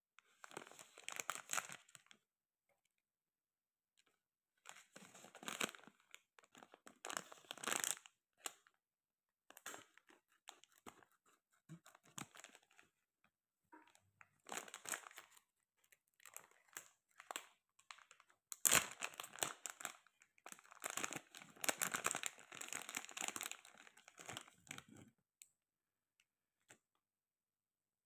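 Plastic packaging pouch crinkling and tearing in the hands as it is opened, in repeated bursts of a few seconds each that stop a few seconds before the end.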